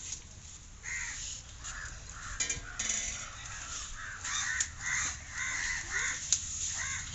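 Birds calling repeatedly: many short, harsh calls follow one another from about a second in until the end.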